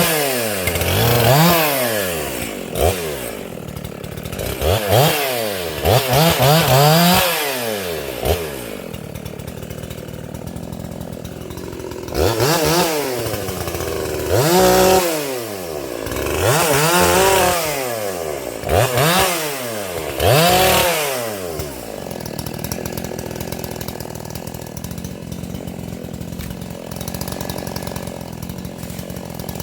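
Makita EA7900P / Dolmar 7900 80cc two-stroke chainsaw, revved to full throttle and back down about ten times in two runs of short bursts, as in quick cuts through limbs. From about three-quarters of the way in it settles to a steady, quieter idle.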